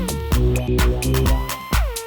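Electronic dance music, instrumental: a punchy beat with deep bass hits and synth notes that slide down in pitch.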